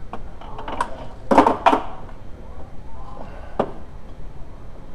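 Metal clinks and clatter of a wheel hub and snap-ring pliers being handled on a steel workbench: a few light clicks, a louder cluster of clanks and scrapes about a second and a half in, and one more sharp clink near the end.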